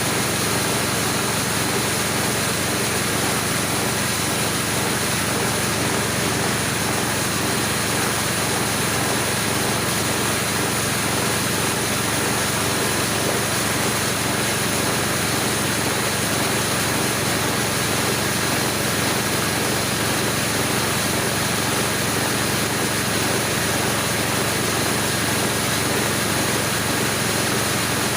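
Home-assembled corn grinding mill running, a steady, unchanging machine drone with a constant hum.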